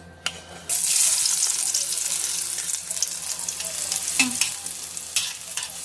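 Onion going into hot oil in a pan: a sudden sizzle starts just under a second in and settles into a steady frying hiss.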